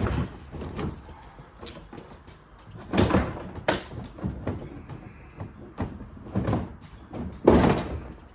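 Plastic front bumper cover being worked free of the car: a series of separate clunks, creaks and scrapes of plastic, the loudest near the end.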